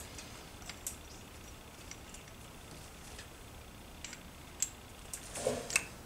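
Sparse light clicks and taps of small metal engine parts being handled as a piston and wrist pin are fitted onto a Tomos moped engine's connecting rod, with a few louder clicks near the end.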